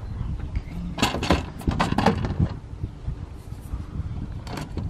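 Clanks and knocks of an aluminium solar panel frame and its mounting brackets being handled and set down on the van's roof rail: a cluster of sharp metallic knocks about a second in, more near the end, over a steady low rumble.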